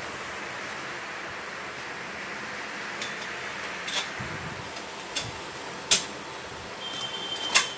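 A fan running steadily, with a few short metallic clicks and knocks from the tubular stainless steel chair frame being handled during assembly. The sharpest knocks come about six seconds in and near the end.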